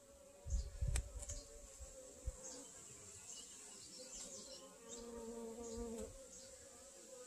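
Honeybees buzzing on an open brood frame: a steady hum that swells between about five and six seconds in. A few low thumps sound near the first second.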